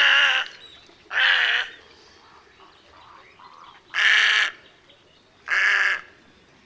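Little egret giving four harsh calls, each about half a second long and unevenly spaced.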